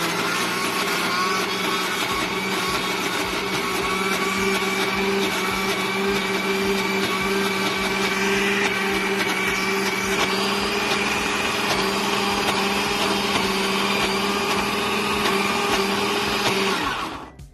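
Electric blender running steadily at one speed, puréeing peeled garlic with corn oil and lemon juice into a thick paste. The motor cuts off near the end.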